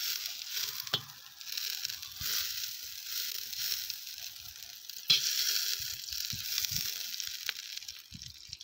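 Butter sizzling as it melts in a hot cast-iron kazan, pushed around with a knife. The sizzle starts the moment the butter touches the metal and grows louder about five seconds in, with a couple of sharp ticks of the knife against the pot.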